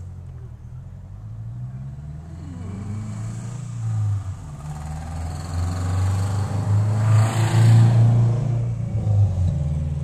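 A motor vehicle's engine rumble that grows louder to a peak about seven to eight seconds in, then fades, as a vehicle passing by does.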